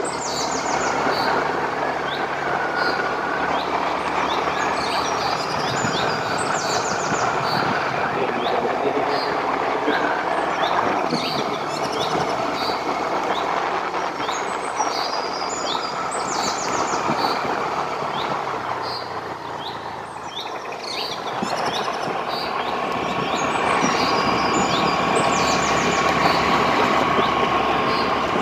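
Steady road and wind noise from a moving vehicle on a hill road, dipping briefly about two-thirds of the way through. Birds chirp over it in short, bright, repeated phrases.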